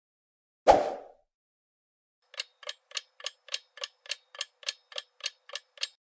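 Quiz countdown-timer sound effect: a clock ticking evenly, about three ticks a second, starting about two seconds in. Under a second in there is a single short hit from a transition sound effect.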